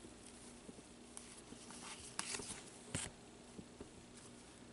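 Quiet handling of trading cards in cotton-gloved hands: soft rustles and a few faint ticks as the cards are slid and tapped, the clearest about two and three seconds in, over a faint steady hum.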